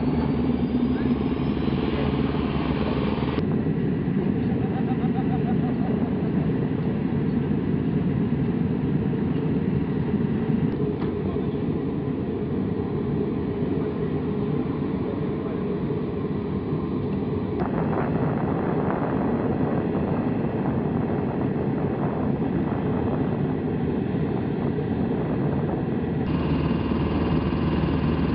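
Steady engine drone of flight-line ground equipment. It shifts abruptly several times where the shots change.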